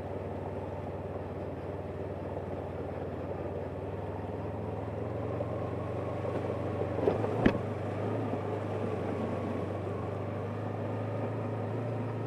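Yamaha R3's parallel-twin engine running steadily as the motorcycle rides through standing floodwater, with the hiss of the tyres cutting through the water. Two sharp knocks come a little past halfway.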